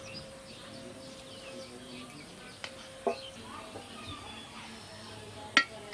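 Birds chirping and calling all around. Two sharp clinks of cooking utensils cut through, one about three seconds in and a louder one near the end.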